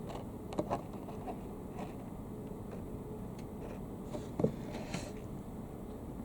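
Scattered light clicks and taps of trading cards and their cardboard box being handled, with one louder knock about four and a half seconds in and a short soft rustle just after.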